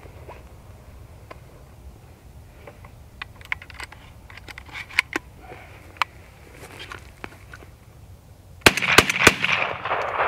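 Scattered light clicks of the shotgun being handled, then a Browning Maxus semi-automatic shotgun fires three shots in rapid succession near the end, each about a third of a second apart, followed by a long rolling echo. The action cycles fast.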